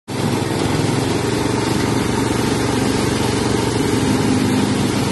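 Small paddy thresher, run by an electric motor rather than a diesel or petrol engine, threshing steadily as paddy straw is hand-fed into its feed tray.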